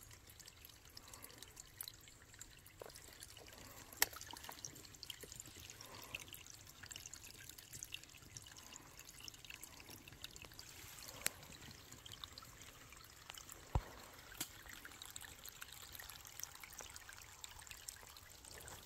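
Thin trickle of water running off a wet rock face into a collapsible plastic water bag as it fills, with scattered small drips and splashes.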